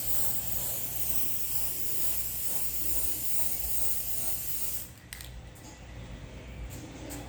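Aerosol spray paint can spraying gloss black paint in one steady hiss of about five seconds that cuts off suddenly, followed by a brief spritz.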